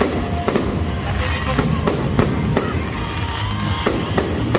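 Aerial fireworks bursting in a rapid run of sharp bangs, some about half a second apart, over background music.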